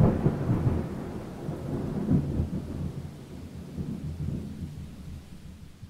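Thunder rumbling with rain, a sharp peak right at the start and another about two seconds in, fading away toward the end.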